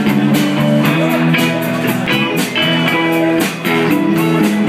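Rock band playing live: electric guitars over bass and drums, with steady drum and cymbal hits. An instrumental stretch with no singing.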